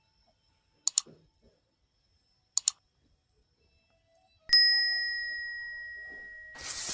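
Two pairs of quick sharp clicks, then a single bright metallic ding that rings and fades slowly over about two seconds. A short burst of rustling noise comes near the end.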